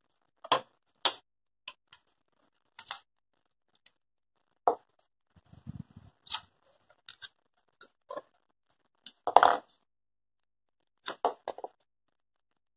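Hands working EVA foam around a wire stem and handling a plastic glue bottle: scattered short clicks and rustles with quiet gaps between them, the loudest a little after nine seconds in.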